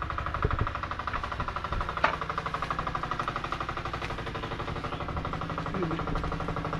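A small engine running steadily at an even speed, with a couple of sharp knocks about half a second and two seconds in.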